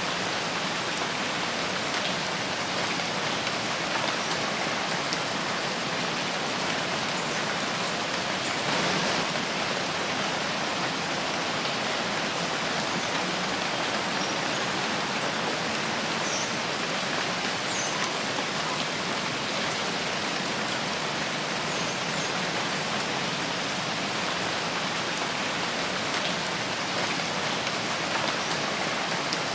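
Steady rain falling in a forest, an even hiss of drops on leaves and the ground. A few faint high chirps sound briefly about halfway through.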